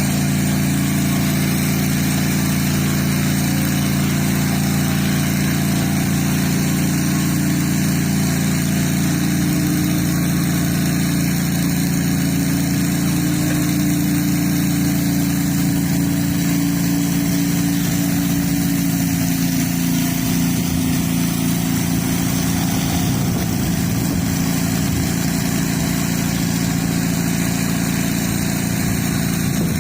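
Gas engine of a pressure washer running steadily, with an even hiss of high-pressure water spray over it.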